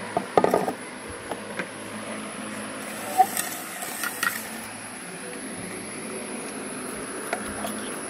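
A few clinks and knocks of glassware and a metal spoon, with a cluster in the first second and a sharp clink about three seconds in, over a steady low hum.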